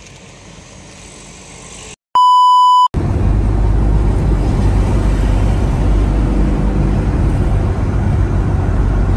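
A loud electronic beep, one steady pure tone lasting under a second, cuts in about two seconds in over faint road noise, with dead silence just before and after it: a bleep edited into the soundtrack. After it comes a loud, steady low rumble of a vehicle in motion.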